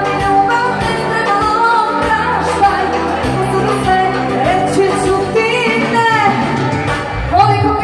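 A woman singing into a microphone with vibrato, over electronic keyboard accompaniment and a steady bass line.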